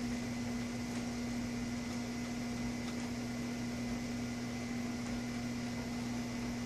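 Steady low electrical hum over a faint even hiss: room tone with a constant low pitch and no distinct events.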